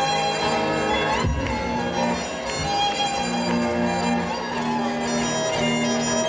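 Live band playing an instrumental passage, a violin carrying the melody in held notes over the band.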